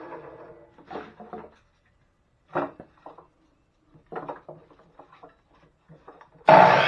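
Pieces of firewood knocking and clattering as they are handled, a handful of separate knocks. Near the end a power tool starts abruptly and runs loud.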